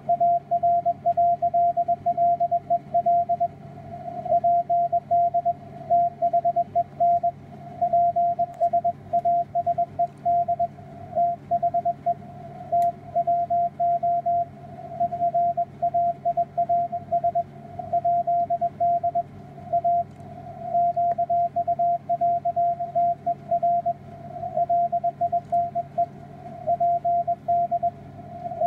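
Morse code (CW) signal on the 160-metre amateur band, heard through a software-defined radio receiver: a steady beep keyed on and off in dots and dashes throughout, over a faint steady hum and band hiss.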